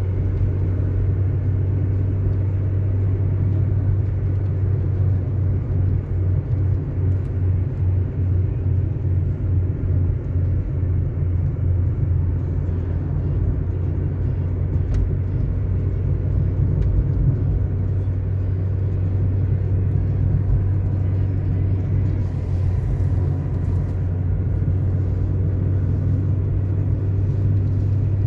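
Car driving steadily on asphalt: a constant low rumble of engine and tyre road noise.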